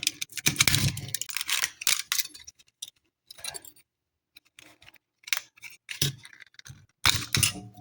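Plastic case of a cheap carbon monoxide and smoke detector being forced apart by hand, its snap-fit clips breaking: a quick run of cracks and clicks for about two seconds, then a few scattered single snaps.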